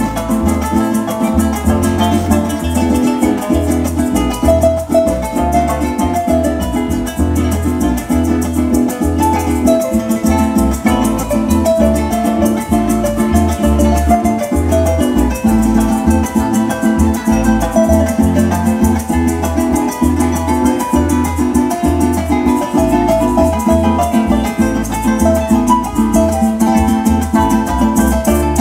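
A live Venezuelan llanera ensemble plays: llanera harp, four-string cuatro strumming and electric bass, with a steady pulsing bass line.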